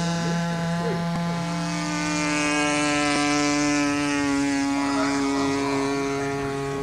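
Radio-controlled model airplane engine running in flight with a steady buzzing drone, its pitch dropping about two seconds in. Faint voices murmur underneath.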